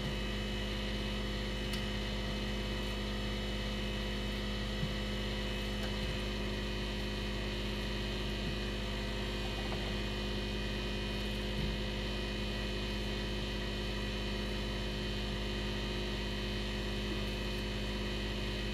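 Dishwasher running with a steady hum, with a few faint taps as a knife cuts through potatoes.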